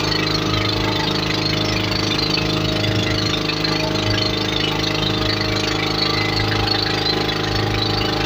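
Motorboat engine running at a steady speed, its pitch and level unchanging.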